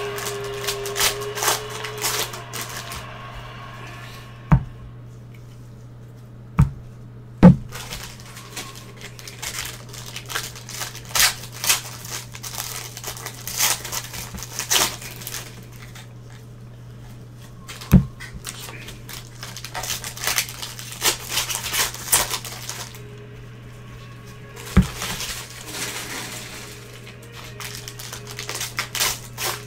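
Foil trading-card pack wrappers crinkling and tearing as basketball card packs are ripped open by gloved hands, with the cards rustling and shuffling. Several sharp knocks on the table stand out above the crinkling.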